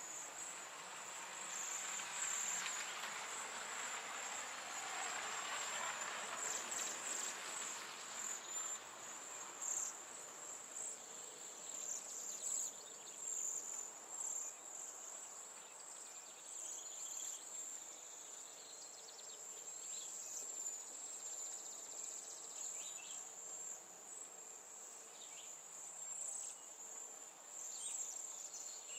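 Insect chorus, like crickets, trilling steadily at a high pitch. A broader rushing noise sits under it for the first several seconds.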